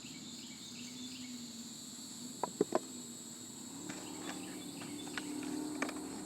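Steady high insect chirring in the background, with three sharp clicks close together about two and a half seconds in and a low hum coming in after about four seconds.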